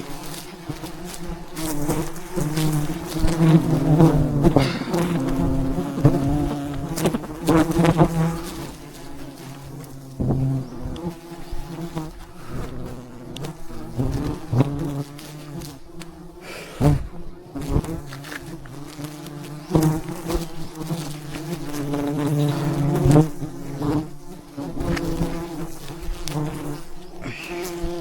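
A swarm of wild honeybees buzzing, a dense hum of many wingbeats that swells and fades, with scattered short knocks.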